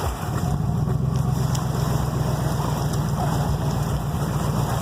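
1999 Ford F-150 pickup's engine running with a steady low drone.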